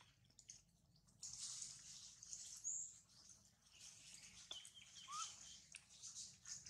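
Faint outdoor ambience: a soft high hiss with a few short bird chirps, one of them rising, and a couple of small clicks.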